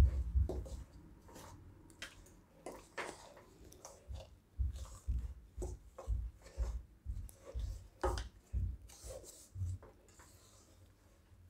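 Spatula scraping and knocking against a pan while rice flour, powdered sugar and ghee are stirred together for laddus: a run of short scrapes and soft knocks, about two a second, easing off near the end.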